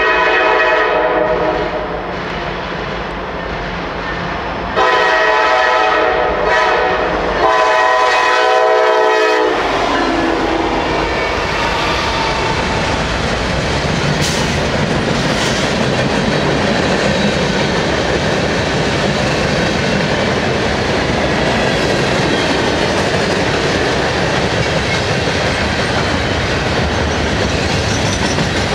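Norfolk Southern freight train led by GE diesel locomotives: the lead unit's horn sounds several long blasts for a grade crossing over about the first ten seconds. Then the locomotives pass close by and a long string of freight cars rolls past with steady wheel clatter on the rails.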